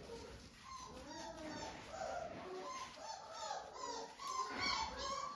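Four-week-old yellow Labrador retriever puppy whining and whimpering in short, high, rising-and-falling cries, repeated many times and getting louder near the end.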